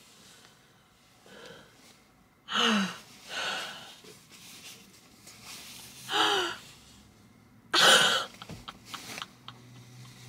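A woman's excited gasps and breathy squeals of delight: four short bursts, some sliding down in pitch.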